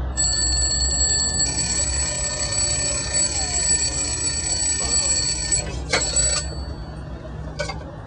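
Alarm clock ringing shrilly and steadily with a fast flutter, switched off with a click about six seconds in.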